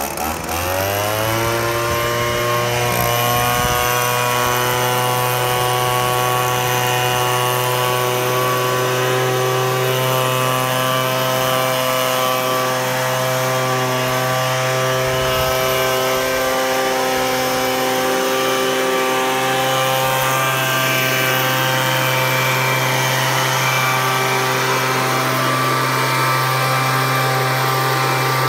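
Equus 3-in-1 deluxe blower-vacuum running in blower mode. Its motor spins up with a rising whine over the first couple of seconds, then runs steadily at full speed.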